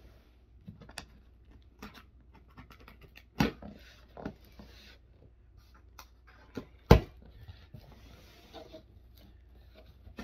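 Cardboard shipping box being handled and opened: scraping and rustling with scattered light taps, and two sharp knocks a few seconds apart, the second the loudest.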